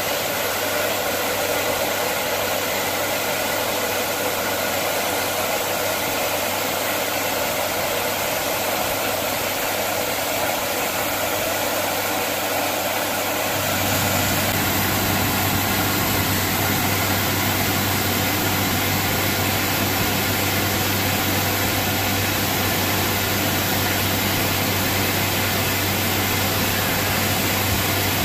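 Steam hissing steadily as it escapes from beneath the standing HGS-class steam locomotive. About halfway through, a deeper, steady rumble joins the hiss.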